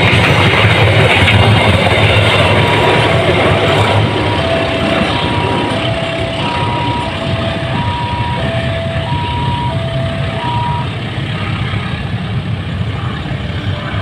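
Passenger train cars rolling past on the rails, a steady rushing rumble that slowly fades. From about two seconds in until near the end, a level-crossing warning alarm sounds over it, alternating high and low beeps about twice a second.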